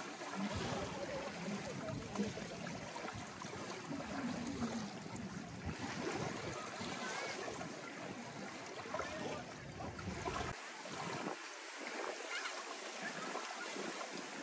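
Steady rushing of water with wind noise. The deep low rumble drops away about ten seconds in.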